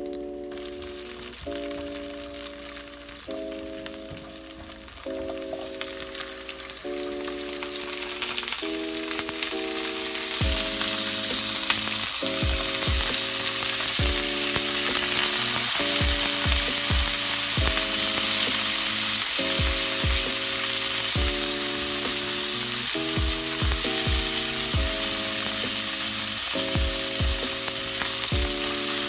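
Garlic and sausage slices sizzling in hot oil in a nonstick wok while being stir-fried, the sizzle growing much louder about a third of the way in. Soft background music with a steady beat plays underneath.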